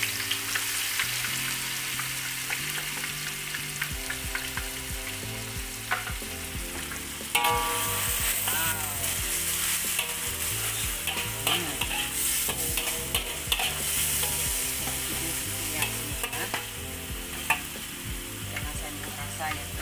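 Blended chili sambal paste with shrimp paste frying in hot oil in a metal wok, sizzling steadily, while a metal spatula stirs it and scrapes against the wok.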